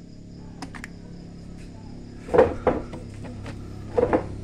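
Sharp clicks and knocks from an Epson L-series ink tank printer as its copy button is pressed and the mechanism starts up, coming in two close pairs about a second and a half apart, over a steady low hum.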